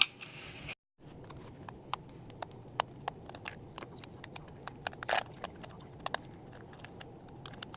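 Irregular small clicks and taps of hands prying and working at the parts inside a lucky cat figurine, over a faint hiss.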